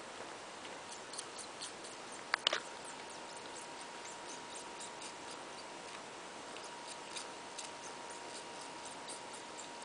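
Kitten suckling at a puppy's belly: soft, irregular little sucking clicks, with two sharper clicks about two and a half seconds in.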